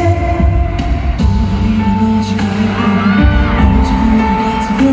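Male vocal group singing a slow song live over the band or backing track through a concert sound system, with long held notes.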